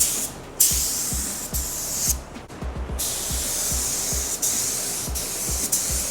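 Air-fed HTE paint spray gun hissing as it sprays base coat, in passes broken by short pauses where the trigger is let off, about half a second in and again around two seconds in. Background music with a steady low beat plays underneath.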